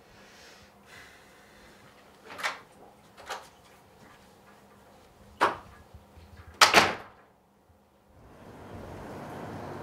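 A room door being opened and shut: a few sharp handle and latch clicks, then a louder double knock about seven seconds in as it closes. A steady rushing background noise starts about a second later.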